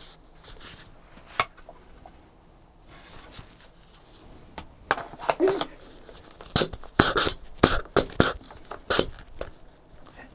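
Handling noise from a small plastic gas shell of a VFC Fabarm STF-12 airsoft shotgun being turned over and fitted in gloved hands. A few faint clicks come first, then about halfway through a run of about eight sharp clicks and clacks.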